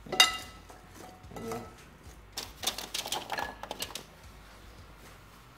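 A utensil clinks against a mixing bowl with a short ringing note, then a rapid clatter of seasoned potato wedges tumbling out of the bowl onto a metal baking sheet, dying away about four seconds in.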